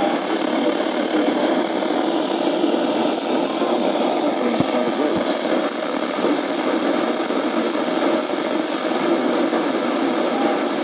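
Steady radio static hiss from a receiver tuned to a weak or dead-air broadcast channel, with no words heard through it.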